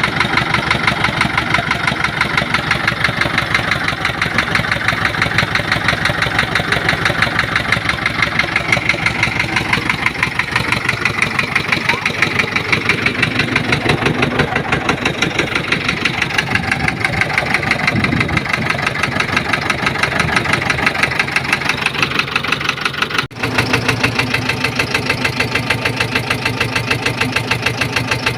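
Perkins 1104 four-cylinder diesel engine of a Massey Ferguson 460 Xtra tractor running steadily at idle, with a knock in it: the engine has a knocking and overheating problem. The sound breaks for an instant about 23 seconds in.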